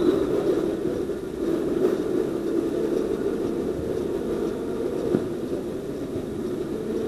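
Steady low rumble with no clear pitch, with a single faint knock about five seconds in.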